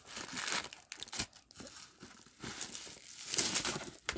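Packaging crinkling and rustling as a robot sweeper is handled and lifted out of its box, louder near the start and again about three seconds in.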